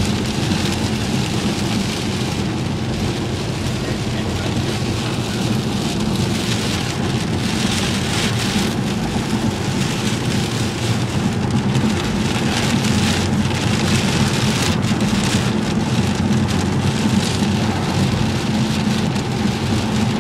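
Heavy rain pelting the car's roof and windshield, heard inside the cabin over the steady low hum of the engine and tyres on the wet road. Sharp drop impacts become denser from about a third of the way in.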